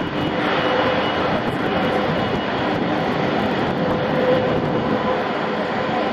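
Boeing 747-400ERF freighter's four jet engines running at taxi thrust. The jet noise is steady, with a faint whine running through it.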